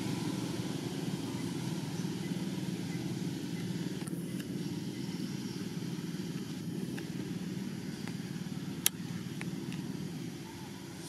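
Steady low rumble, with a single sharp click about nine seconds in.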